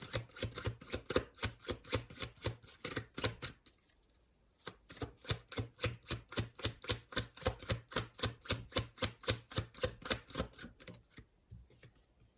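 A deck of tarot cards being shuffled in the hands: a quick, even run of card flicks, about five a second, with a brief pause about four seconds in.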